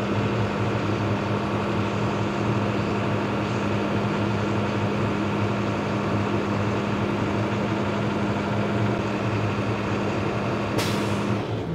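Truck's diesel engine running steadily with the throttle held slightly open to build air-brake pressure. Near the end a sudden burst of air hiss as the air governor cuts out, the sign that the air system is fully charged, and the engine note then drops.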